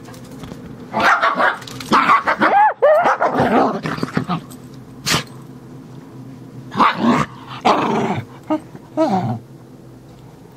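A dachshund and a Bichon–Shih Tzu mix growling and barking at each other while play-fighting, in two loud spells, the first about a second in and the second near seven seconds in, with a single sharp knock between them.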